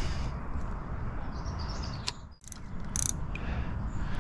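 Spinning fishing reel's mechanism clicking in a few short bursts in the second half, over a steady low rumbling noise.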